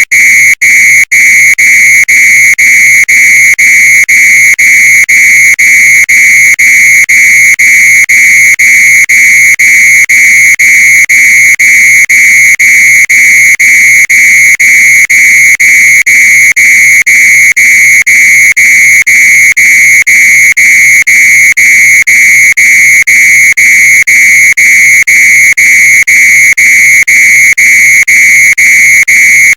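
Fire alarm with a sock over it, sounding loudly: a high, shrill tone pulsed in rapid, even beeps that go on without a break.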